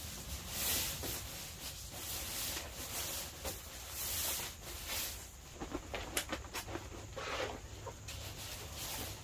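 Rustling of fabric and nylon mesh as a poncho liner is handled and pushed around inside a bed net on a cot. There are a few short sharp ticks and squeaks in the second half.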